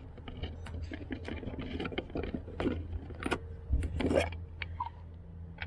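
Small metallic clicks and scrapes as a 4 mm hex key works the screws holding a BBS wheel's centre cap, with the plastic cap handled and scraped loose about four seconds in. A steady low hum runs underneath.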